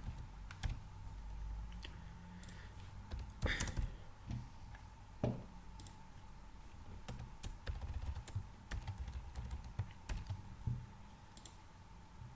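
Computer keyboard typing: irregular, spaced keystrokes with pauses between them as code is entered, over a faint steady hum.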